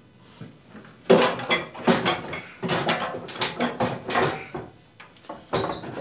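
Metal clanking and rattling as the chipper shredder's steel housing and engine assembly are handled and worked loose: a run of sharp clanks with a ringing edge from about a second in to about four and a half seconds, and one more near the end.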